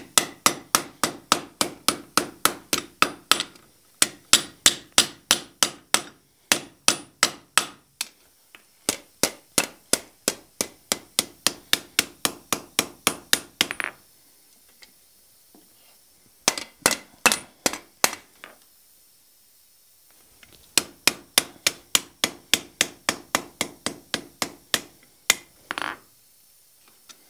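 Blacksmith's hand hammer striking red-hot flat bar on an anvil to scroll the end over, in runs of about three blows a second with the anvil ringing under them. The hammering stops for about two seconds twice in the second half, and ends with one last blow.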